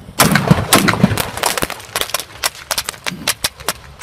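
A mortar-type firework going off at hand height. A dense burst of loud bangs and crackling lasts about a second, then scattered sharp pops die away over the next few seconds.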